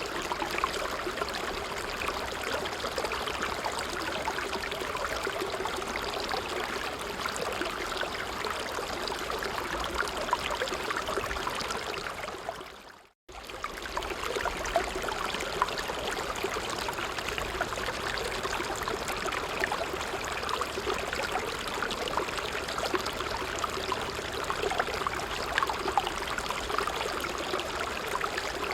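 A creek flowing steadily, rushing and bubbling over stones. The sound fades out to silence about thirteen seconds in and comes straight back.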